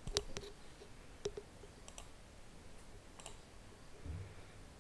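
Faint computer-mouse button clicks: a quick pair at the start, then single and paired clicks about a second apart.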